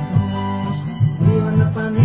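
A man singing a Hindi worship song while playing electric guitar, accompanied by a regular high ticking beat.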